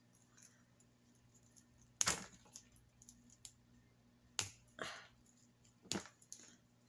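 Small craft pieces being handled on a cutting mat: three sharp clicks spaced about a second and a half apart, with a short rustle between the second and third.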